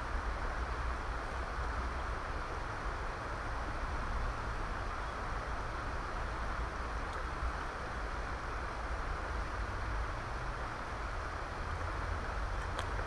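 Steady rush of a fast-flowing river running over stones, with a low rumble of wind on the microphone.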